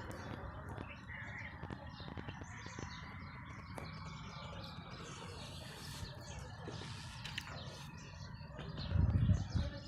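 Birds chirping over a steady low background rumble, with scattered small clicks. The rumble swells louder near the end.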